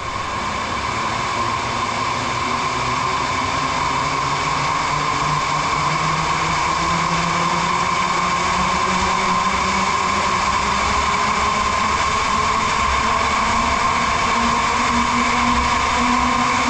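A combine harvester's engine and reversible cooling fan running, making a steady mechanical drone. Its low hum rises slowly in pitch throughout.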